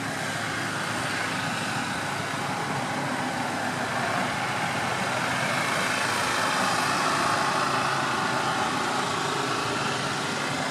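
Several cars rolling slowly past at walking pace in a line, their engines running near idle, with tyre noise on the pavement.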